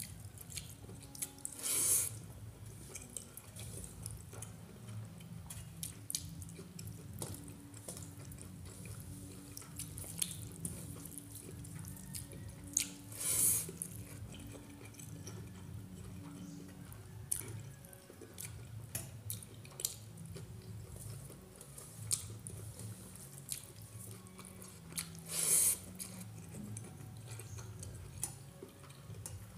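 Eating rice by hand: fingers squishing and mixing wet rice in its starchy water on a steel plate, with small wet clicks and smacks throughout. Three louder wet sounds come about twelve seconds apart as mouthfuls are taken.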